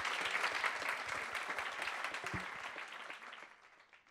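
Audience applauding, the clapping fading out toward the end.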